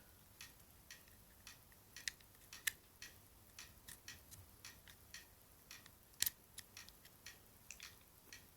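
Faint, scattered small clicks and taps of plastic and metal as a SIM card is fitted into an Alcatel OT-E256 mobile phone, with two somewhat sharper clicks, one a few seconds in and one later.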